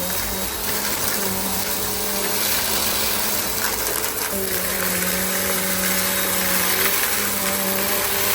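Bissell CleanView Compact vacuum cleaner running: a steady rushing of air over a motor hum whose pitch shifts and dips now and then.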